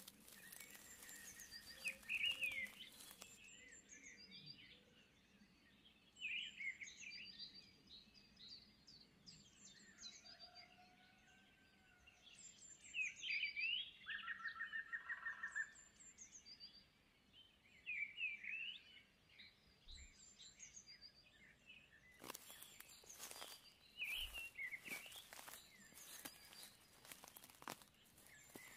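Small birds chirping and calling again and again, short quick notes with pauses between. In the last several seconds a run of sharp clicks and knocks joins them.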